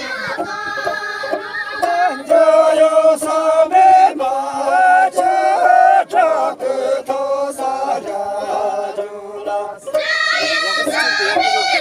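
A group of women singing a traditional dance song together in unison, in long held phrases, with a short break near the end before the next phrase comes in louder.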